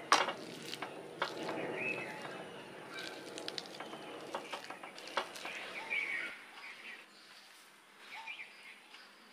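Kitchen work: stirring and scraping with a few sharp utensil clicks, dying away about six seconds in, with a few short high chirps over it.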